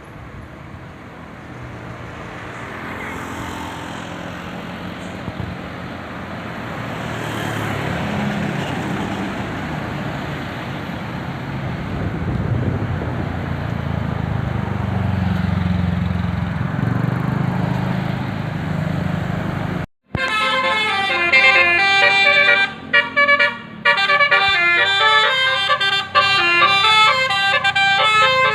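Road noise with a low vehicle engine rumble slowly growing louder, then about twenty seconds in a bus's basuri telolet horn plays a loud multi-note melody, notes stepping up and down.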